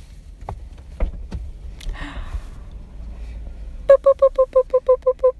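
A car's warning chime beeping rapidly, about seven even electronic beeps a second, for about a second and a half near the end, over a low cabin rumble.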